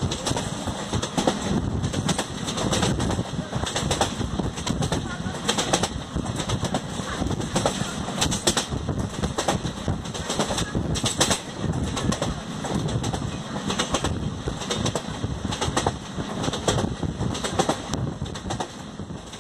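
Express train running at speed, its coach wheels rumbling on the track and clattering over rail joints in irregular clusters of sharp clicks.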